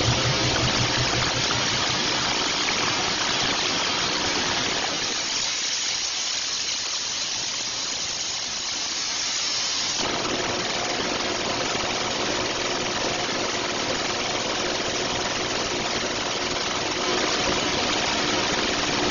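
Coin-mint machinery running: a steady rushing, hissing noise. It thins to mostly high hiss around five seconds in and changes abruptly about ten seconds in.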